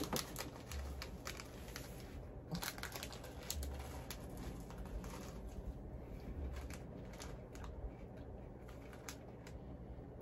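Plastic candy wrappers crinkling as they are handled, a run of small irregular crackles with a few soft low bumps.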